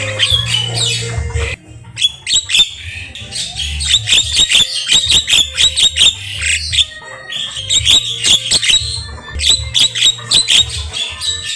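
Javan myna singing a rapid, varied song of harsh squawks, clicks and whistled notes, broken by a short pause about a second and a half in. A low beat pulses underneath.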